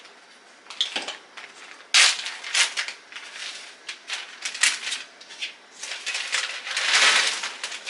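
Clear plastic zip-top bag crinkling and rustling as it is handled, in a run of sharp crackles, the loudest about two seconds in and a dense stretch near the end.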